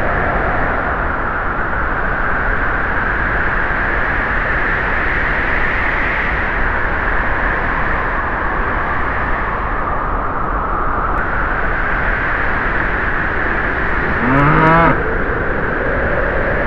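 A tractor engine running steadily, and a cow gives one short moo near the end.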